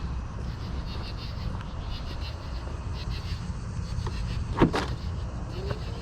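Steady low road and tyre rumble from a BMW i7 electric sedan driving along, with one sharp knock a little over four and a half seconds in and a faint gliding tone near the end.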